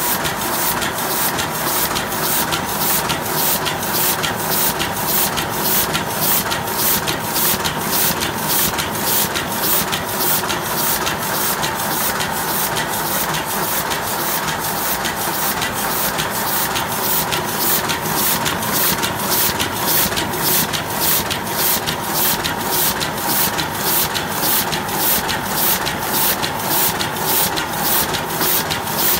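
Heidelberg GTO 46 sheet-fed offset printing press running at speed: a steady mechanical run with a regular beat about twice a second from the press cycling sheets through, over a steady hum.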